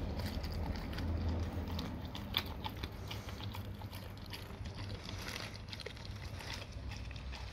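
A dog chewing a raw salmon head, with irregular wet clicks and crunches as its jaws work.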